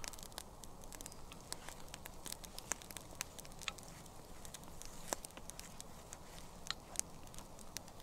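Irregular crackling and sharp pops from a campfire and scrambled eggs frying over it in a small copper frying pan, stirred with a wooden spatula.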